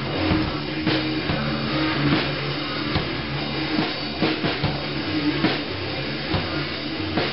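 Rock band playing live: electric guitars and a drum kit with regular drum hits, recorded roughly on a camera's built-in microphone.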